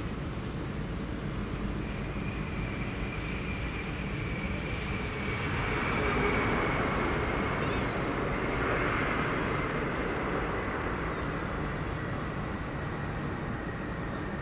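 Jet airliner passing close by on landing: a steady rushing jet noise with a high engine whine that comes in about two seconds in and slowly falls in pitch. The noise swells in the middle as the aircraft goes by.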